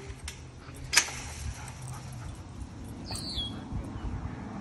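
Metal latch of a chain-link kennel gate clanking shut once, about a second in. About three seconds in a dog gives a brief high whimper that falls in pitch.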